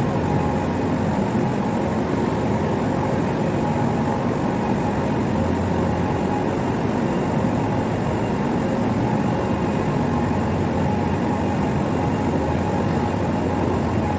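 Steady hum of industrial machinery running without change, with a few faint constant tones over a broad mechanical noise.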